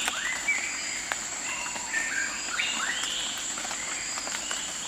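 Nature ambience: a steady high-pitched insect trill with several short bird calls that rise and fall over it.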